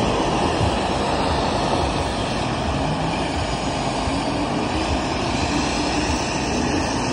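Pressure washer running and spraying water against a stucco wall and window sill: a steady rush of spray over the drone of the machine.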